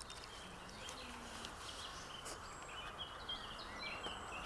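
Faint outdoor ambience with small birds chirping and twittering over a steady low hiss.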